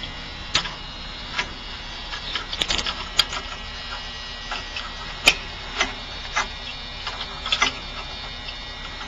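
Irregular metallic clicks and taps from a saw grinder's lock pin being set into its angle plate and tightened, with one sharper knock about five seconds in. Steady background noise runs underneath.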